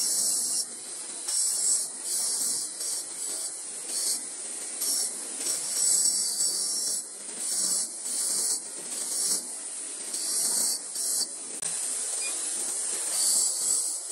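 Bench grinder's spinning wire brush wheel scrubbing the metal of a motorcycle drum brake shoe: a high hiss that surges and drops in irregular bursts as the shoe is pressed against the wheel and turned.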